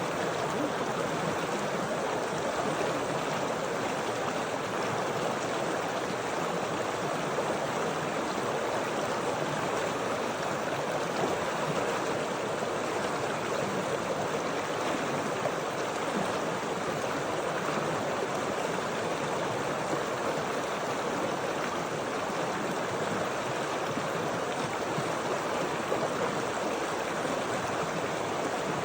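Flowing water of a stream, a steady rushing with no breaks or changes.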